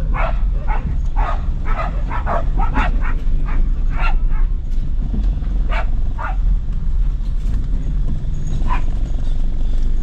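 Dogs barking and yipping in short bursts, thick and fast for the first four seconds and then a few more, over the steady low rumble of a vehicle's engine and road noise heard inside the cab.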